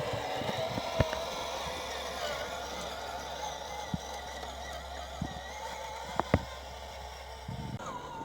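Electric motor and gearbox of a scale RC Kamaz 6x6 logging truck whining as it crawls over rough ground, the whine wavering up and down with the throttle, with a few sharp clicks and knocks from the chassis and wheels on the terrain.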